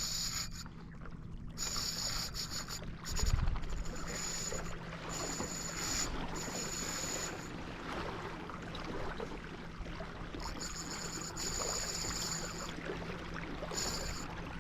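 Water and wind noise aboard a kayak, with a high-pitched buzzing that comes and goes in stretches of a second or two, and a low thump about three seconds in.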